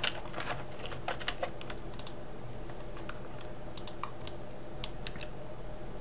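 Computer keyboard keys and mouse buttons clicking: a quick run of key presses in the first second and a half, then scattered single clicks, over a steady low hum.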